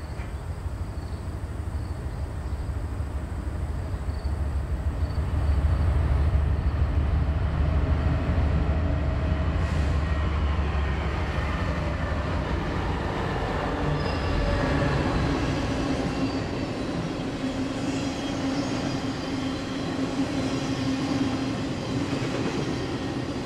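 Norfolk Southern diesel freight locomotives approach and pass with a heavy low engine rumble, loudest about a third of the way in. After them a long string of intermodal flatcars carrying trailers rolls by, steel wheels running on the rails.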